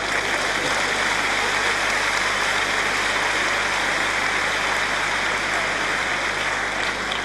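Large theatre audience applauding: dense, even clapping that eases off slightly near the end.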